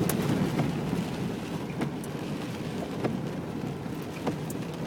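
Steady rain with scattered drops ticking, over a constant low rumble.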